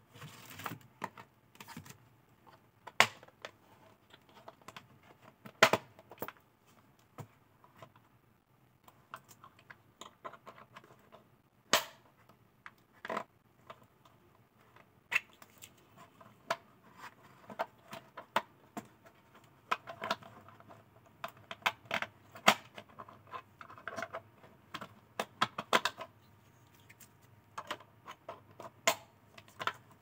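Irregular clicks, taps and rustles from hands handling a nylon-webbing bottle holder clip with a plastic buckle and snap button while fitting it around the neck of a plastic soda bottle.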